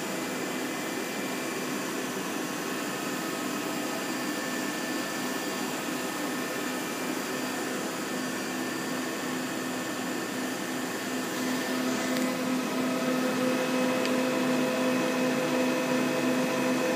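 Wasino TH-10 CNC turning center running, its right-side spindle turning: a steady mechanical hum with a thin whine, somewhat louder from about twelve seconds in.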